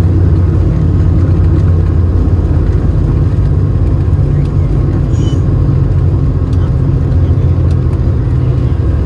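Cabin noise inside an Airbus A220 from a window seat: the steady, loud low rumble of its Pratt & Whitney PW1500G geared turbofan engines and the airflow during the landing, with a few faint clicks about five seconds in.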